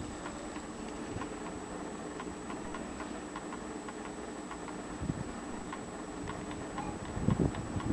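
French mantle clock movement with a visible escapement ticking steadily, with a few dull knocks from the movement being handled about five seconds in and near the end.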